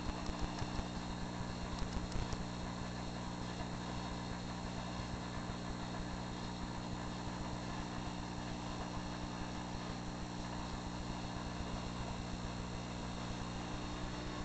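Saltwater aquarium's pumps and water circulation running: a steady electrical hum under a constant rush of moving water.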